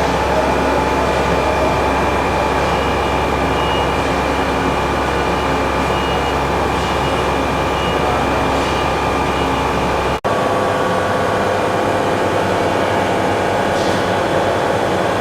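Milltronic HBM 4 CNC horizontal boring mill running with its spindle extending out. It is a steady mechanical hum with several steady whining tones. The sound drops out for an instant about ten seconds in, and the deep hum is lighter afterwards.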